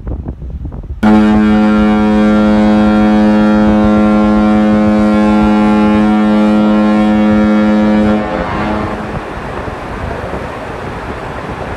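Ship's horn sounding one long, steady, deep blast of about seven seconds, starting abruptly and cutting off with a brief echo, over wind and water noise.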